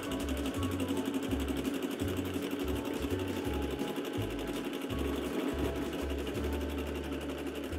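Home sewing machine running steadily at speed, sewing a wide zigzag satin stitch through a fur stocking cuff, the needle striking in a fast, even rhythm.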